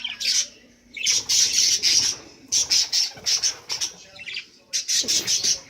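Budgerigar squawking in several harsh, high, rasping bursts, the longest starting about a second in. The owner takes it for a nesting hen in the nest box getting cranky.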